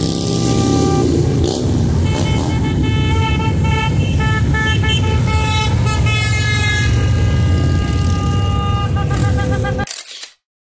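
Motorcycle engines rumbling as a group of bikes rides past, with several horns honking together in long held blasts from about a second in until near the end. The sound cuts off abruptly just before the end.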